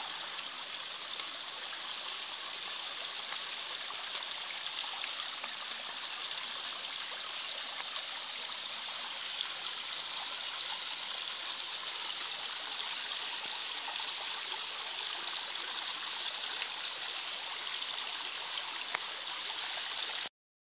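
Water gushing up in jets through the holes of a manhole cover and splashing into standing water: a steady rushing noise that cuts off suddenly near the end.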